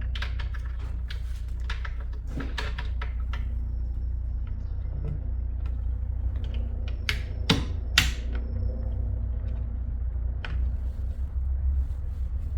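Small metal-and-wood clicks and knocks of a newly fitted drawer lock being tried in a wooden desk drawer, with two sharper clacks about half a second apart midway through, over a steady low hum.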